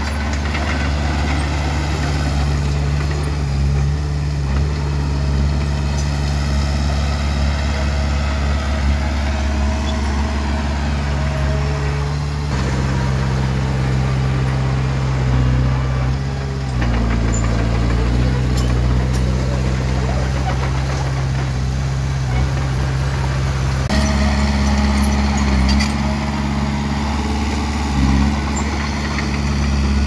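Komatsu D20P bulldozer's diesel engine running steadily while it pushes fill, its low engine note shifting down and back up a few times.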